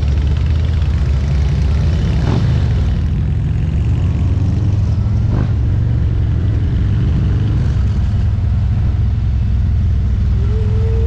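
Motorcycle engine with a steady low rumble, heard from the bike while riding.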